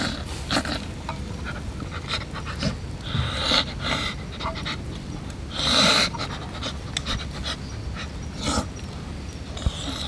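A man huffing and panting through his mouth as he eats food that is too hot, several short puffing breaths with the loudest about six seconds in.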